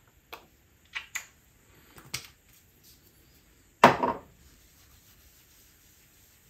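A few light clicks and taps, then a louder short thump about four seconds in, followed by faint rubbing of fingertips on skin as product is patted onto the face.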